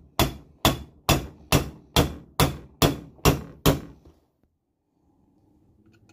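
Nine quick, evenly spaced hammer blows on metal, each with a short ring, stopping a little before halfway through. They are peening the ends of the brass throttle-plate screws on a Holley carburetor baseplate, spreading the metal so the screws lock in and won't back out.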